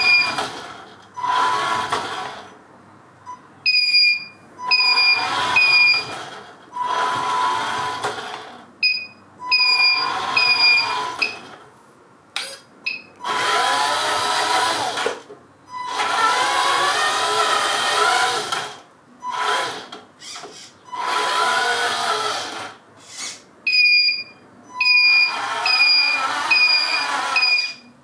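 The drive motor and gears of a 1/10-scale RC Unimog U423 4x4 truck whine in short bursts as it drives, the pitch rising and falling with speed. During several of the bursts a short high beep repeats steadily.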